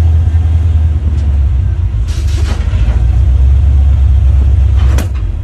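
A pickup truck's engine running steadily at low speed while driving, heard from inside the cab. There is a brief hiss about two seconds in and a sharp click near the end.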